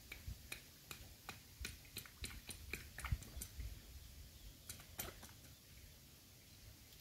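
Light, irregular clicks and taps of a machete blade being worked by hand, about a dozen in the first five seconds, a few with a dull knock.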